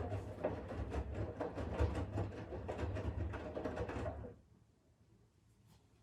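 Siemens iQ500 front-loading washing machine drum turning during a wash: wet laundry tumbling and sloshing over a low motor hum. It stops about four seconds in, as the drum pauses in its turn-and-rest wash rhythm.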